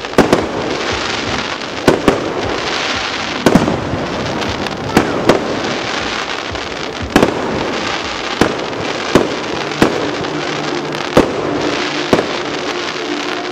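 Fireworks display: aerial shells bursting with sharp bangs about once a second, about a dozen in all, over a continuous crackling hiss from the burning stars.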